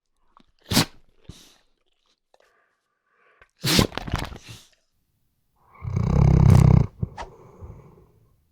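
Sleeping Weimaraner breathing noisily through its nose: short sharp snorts about a second and about four seconds in, then a longer, louder rattling breath around six seconds in.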